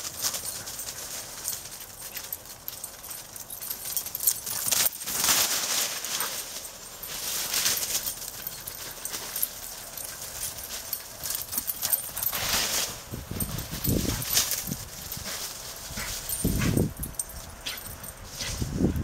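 Two Carolina Dogs playing and running through dry fallen leaves, with irregular rustling and crunching of leaves under their paws and dog sounds now and then. A few stronger, lower bursts come in the last few seconds.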